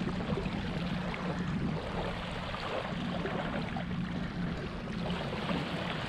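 Small waves lapping and sloshing in shallow water over a sand flat, over a steady low hum.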